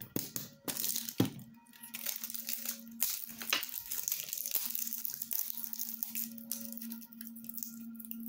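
Plastic crinkling, rustling and tearing as a small plastic soap dispenser is handled and film or tabs are picked off it. A few sharp clicks come in the first second and a half.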